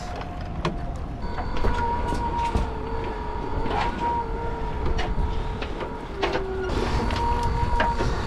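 Small electric motor, most likely a crab pot puller, whining steadily as it hauls a crab pot up on its line, with scattered knocks and clicks over a low rumble of boat and water. The whine starts about a second in and its pitch dips briefly about six seconds in.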